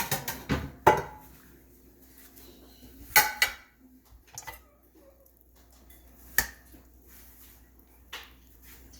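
Cutlery and dishes clinking as they are handled: a few sharp clinks and knocks in short clusters, near the start, about three seconds in, and again around six and eight seconds, with quiet between.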